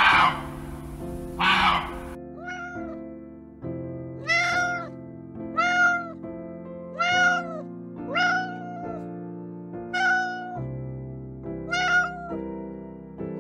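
Two short, harsh barks from a deer at the start, then a domestic cat meowing about seven times, roughly one meow every second and a half, each arching up and down in pitch. Soft background music runs underneath.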